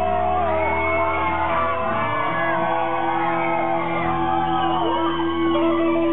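Live band playing a slow intro built on long held notes, with shouts and whoops from the audience over it.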